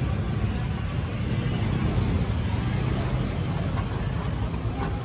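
Steady low rumble of background street traffic, with a few faint sharp clicks near the end.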